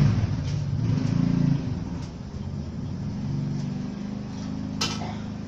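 A 50-year-old letterpress platen press running, with a steady mechanical hum and light knocks about once a second. One sharp clack comes near the end.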